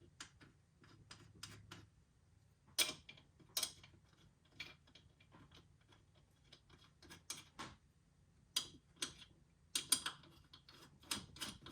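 Faint, irregular metal clicks and clinks as the nuts are started by hand onto the top studs of a new strut assembly, with a few louder knocks scattered through.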